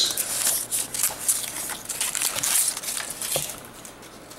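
A brown kraft-paper band around a stack of game rulebooks being broken and pulled off, with quick paper tearing and crinkling for about three seconds before it dies down to light handling.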